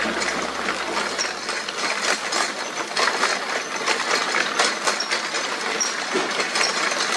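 Pedal-driven chain and homemade gearbox of a three-propeller bike-boat drive running, a dense, steady metallic rattling and clicking of chain over sprockets and meshing gears as the propellers spin in the air, with no water load.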